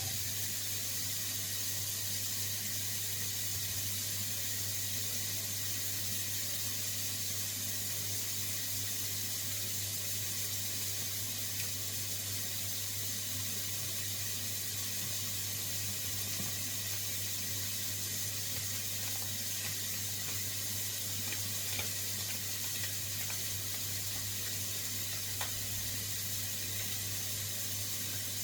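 Onions and mushrooms sweating gently in olive oil in a wok, a steady soft sizzle as they soften without browning, with a low steady hum beneath.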